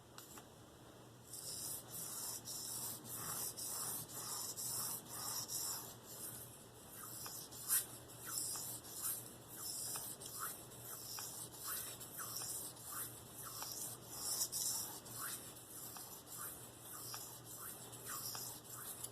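Spyderco Endura 4's K390 steel blade stroked freehand across a fine Venev diamond sharpening stone: a steady rasping hiss at about two strokes a second, starting about a second in, with one sharper click partway through. The strokes are raising a fine burr on the edge.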